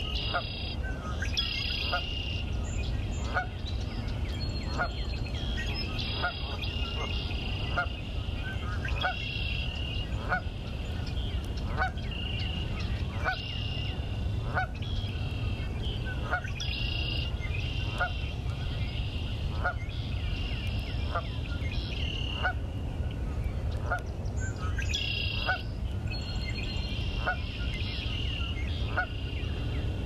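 A goose honking in a steady series, one honk a little over a second apart. Other birds are chirping higher up behind it, over a low steady rumble.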